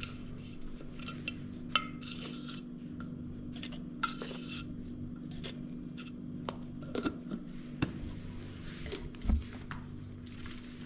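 Scoop and hand scraping and tapping inside a metal tin of infant formula powder while a plastic baby bottle is filled and handled, giving scattered light clicks, clinks and knocks. A steady low hum runs underneath.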